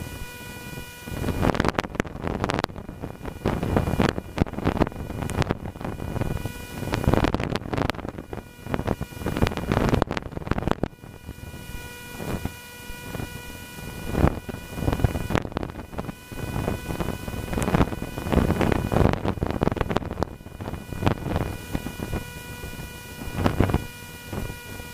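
Wind buffeting the microphone in uneven gusts while a Cessna 150 flies level. Between the gusts a steady whine from the aircraft shows through.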